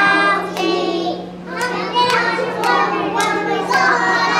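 A group of young children singing together in unison, with a steady low hum underneath.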